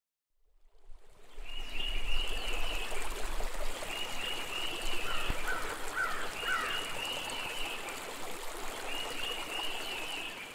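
Running stream water with an animal call, a short chattering phrase repeated four times about every two and a half seconds, and a few shorter, lower calls in the middle. The sound fades in over the first second or two.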